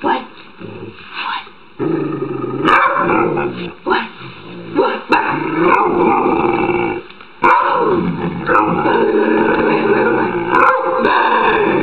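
Old grey-muzzled black dog vocalizing in long, drawn-out grumbles whose pitch wavers up and down. There are two long stretches, with a brief break about seven seconds in.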